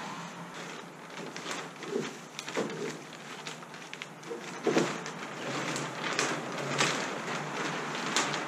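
Sail being hoisted by hand on a small gaff-rigged wooden sailboat: sailcloth rustling and the halyard and spars knocking, heard as an irregular run of swishes and clicks.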